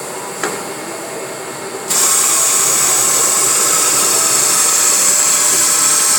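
Semi-automatic tube cutting machine running; about two seconds in a loud, steady high-pitched hiss starts suddenly and holds on.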